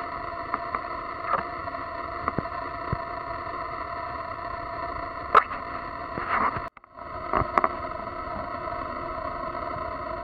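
A thin stream of tap water running from a faucet into a bathroom sink, with scattered splashes and light taps as a cat paws at the stream; the sharpest tap comes about halfway through. The sound drops out for an instant about two-thirds of the way in.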